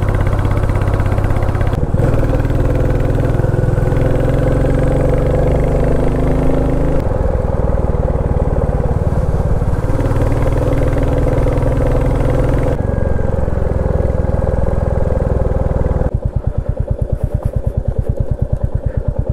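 Royal Enfield Classic 350 Reborn's single-cylinder engine running on the move, its note shifting abruptly several times. From about three seconds before the end it runs at a slower, evenly pulsing beat.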